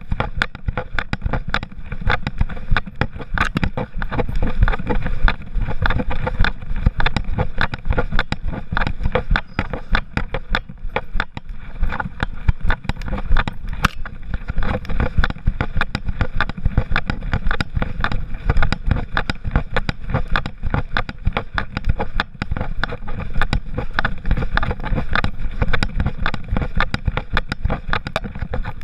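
Constant rubbing and knocking of a GoPro HERO3 strapped to a walking poodle's back: a dense, irregular jostling noise that keeps up with the dog's movement.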